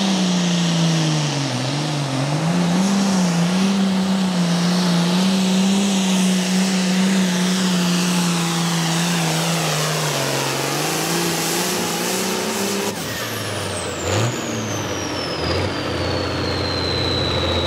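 Super Pro Farm class pulling tractor's turbocharged diesel engine running hard under load. About 13 seconds in it drops abruptly to a low idle, and the turbocharger's high whistle winds down, falling steadily in pitch.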